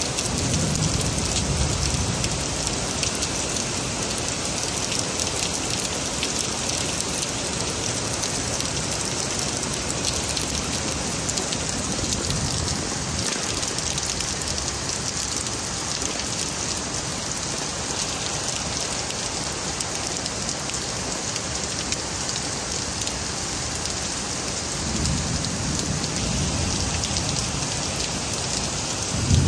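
Heavy rain falling steadily. Low rumbles of thunder swell under it about a second in and again near the end.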